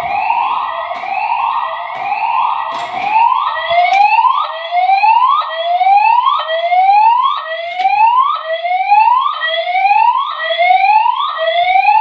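Building fire alarm evacuation tone: a loud electronic rising sweep repeated about once a second, quickening slightly after a few seconds, signalling occupants to evacuate.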